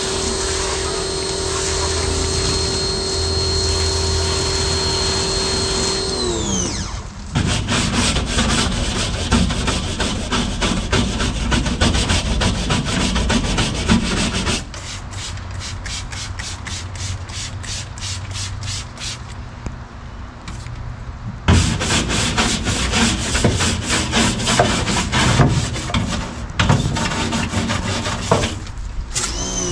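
Ryobi 2000 PSI electric pressure washer motor running with a steady whine, then winding down about six seconds in as the trigger is released. Then a brush scrubs the soapy steel underside of a truck bed by hand in quick back-and-forth strokes, quieter for a few seconds midway and harder again after. Near the end the motor begins to wind up again.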